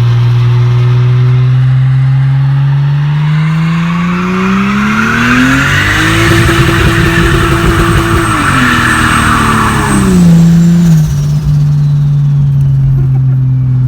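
1998 Lexus GS300's 2JZ-GE inline-six engine running steadily, then revving up over about three seconds. It holds high for a couple of seconds and drops back to a steady run about ten seconds in.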